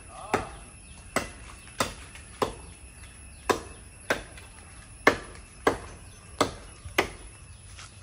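A blade chopping into jackfruit wood high in the tree: about ten sharp strokes, a little under one a second.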